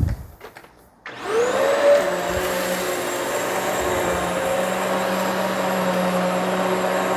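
Hoover Elite Swivel XL Pet upright vacuum switched on about a second in: its motor spins up with a rising whine, then runs steadily.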